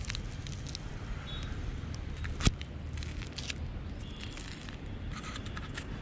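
Handling noise: scattered light clicks and scrapes, with one sharp tap about two and a half seconds in, over a low steady outdoor rumble.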